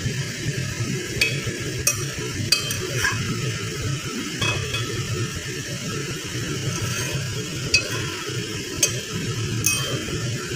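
Metal spoon stirring sliced onions simmering in sauce in a non-stick pot, with about eight sharp clinks of the spoon against the pot over a steady low background.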